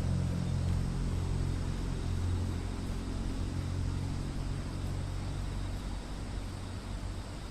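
A motor engine running with a low, steady hum that fades gradually through the second half.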